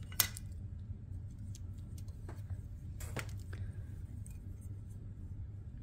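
Light clicks and taps of hard plastic model-kit parts being handled and set down on a cutting mat: one sharp click just after the start and a few more from about two to three and a half seconds in, over a faint steady low hum.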